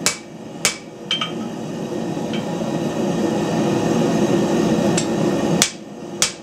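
Hammer blows on the end of a hot steel bar on an anvil, upsetting it: two sharp strikes at the start, a lighter ringing tap about a second in, a couple of faint taps over a steady low rushing noise, then two more sharp strikes near the end.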